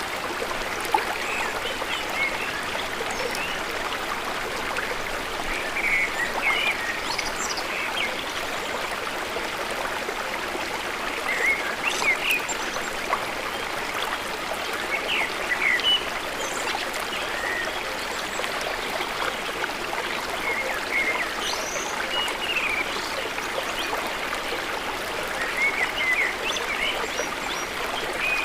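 Steady rush of flowing water, with birds chirping in short, scattered calls every few seconds.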